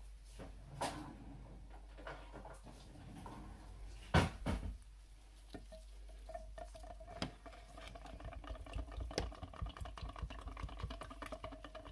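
A whisk stirring coconut-milk curry sauce in a glass measuring jug, its wires tapping and scraping against the glass, with a sharp knock about four seconds in. In the second half the whisking becomes faster and steadier, with rapid ticking.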